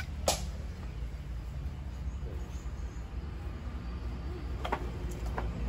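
A few sharp knocks, the loudest about a third of a second in and fainter ones near the end, over a low steady rumble.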